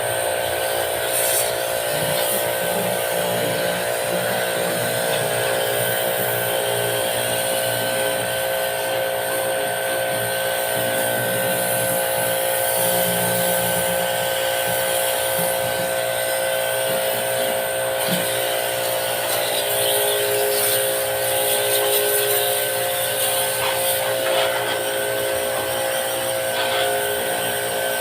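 A small electric motor running steadily with a constant buzzing whine, the kind of pump motor used to spray-wash an air conditioner.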